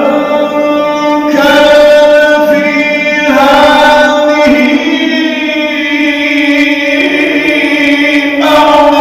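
A man reciting the Quran in the melodic tajweed style, drawing out long ornamented notes that step to a new pitch every second or two.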